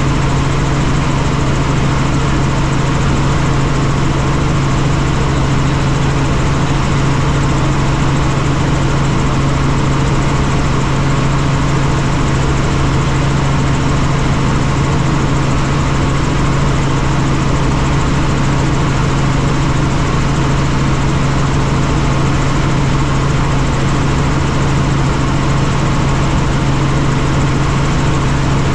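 Helicopter in flight: loud, steady rotor and engine noise, a strong low hum over an even rushing hiss that does not change.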